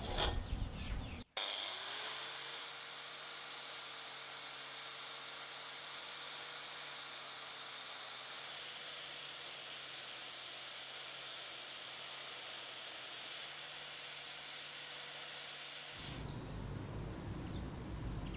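Electric motor-driven sanding disc spins up a little over a second in and runs with a steady high whine while a wooden blank is ground against it. The pitch dips slightly mid-way as the wood is pressed on. The sound cuts off abruptly near the end, giving way to outdoor ambience.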